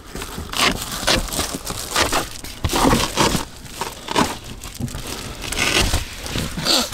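Bedding rustling and crumpling inside a car as someone shifts about among a sleeping bag and pillows: a run of irregular rustles and soft bumps.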